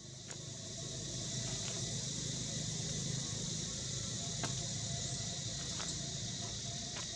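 Outdoor ambience: a steady high drone of insects swelling in over the first second, over a low rumble, with a few faint scattered clicks.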